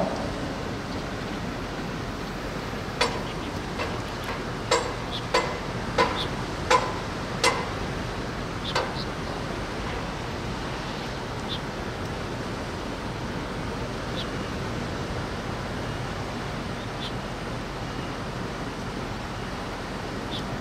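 Steady wind-and-rain noise, with a run of about eight sharp, ringing metallic knocks roughly two-thirds of a second apart starting about three seconds in and ending near nine seconds, then a few faint clicks.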